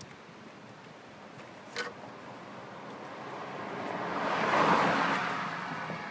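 A vehicle passing by, its noise swelling to a peak and fading over a few seconds. A short sharp click comes about two seconds in.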